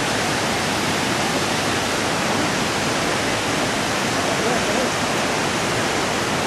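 Vernal Fall's falling water heard from the trail below it: a steady, even rush with no let-up.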